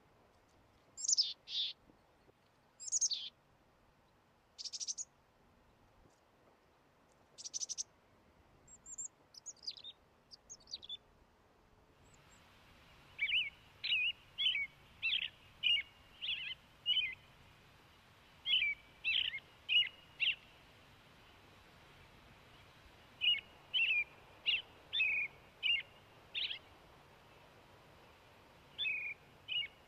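Songbirds singing. For about the first twelve seconds, clear high sweeping notes come one or two at a time with gaps between them. Then the background hiss steps up abruptly and a bird sings quick phrases of chirps, repeated every few seconds.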